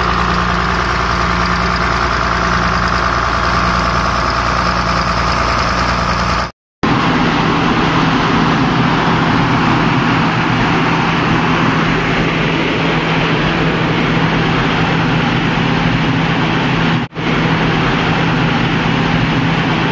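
Tata Cummins 6BTA turbocharged six-cylinder diesel in a generator set running steadily on its load trial after an overhaul. A steady whine sits over the engine note for the first third. The sound breaks off for a moment about six and a half seconds in and again near seventeen seconds.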